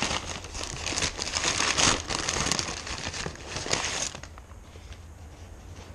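Packing material crinkling and rustling as a shipping box is unpacked by hand, dying down about four seconds in.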